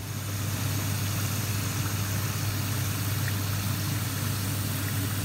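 Homemade chips sizzling steadily in hot oil in a wire frying basket, with a steady low hum underneath.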